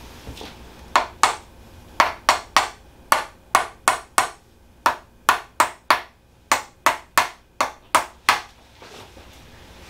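About twenty sharp taps in quick, uneven runs of two to four, with a short pause about five seconds in: percussive tapping worked over the tight sacroiliac joint at the pelvis.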